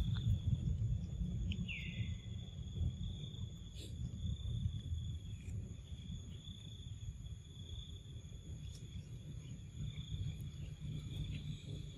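Forest ambience: a steady, high insect drone runs throughout over a low rumble. A short falling squeak comes about two seconds in, along with a few faint clicks.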